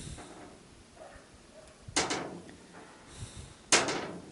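Two sharp clacks about two seconds apart, hard parts or tools being knocked or set down, each dying away over about half a second.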